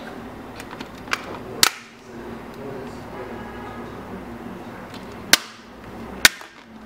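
Sharp plastic clicks as the snap-on back cover of a THL smartphone comes off its clips. A small click and a loud snap come a little over a second in, then two loud snaps about a second apart near the end.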